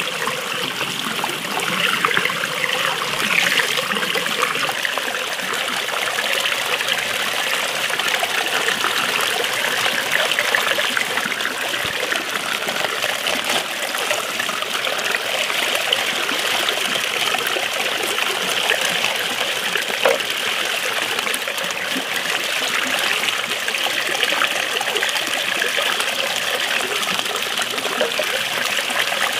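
A steady stream of running water pouring and splashing onto halved napa cabbages in a basin as they are rinsed by hand.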